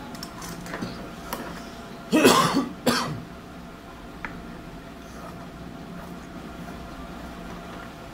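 A person coughs twice in quick succession, about two seconds in, over a steady low hum.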